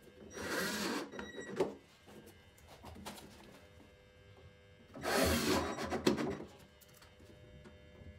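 Cordless drill-driver running in two bursts of about a second and a half each, driving screws through a perforated metal corner bead into plasterboard, with a sharp click near the end of each burst.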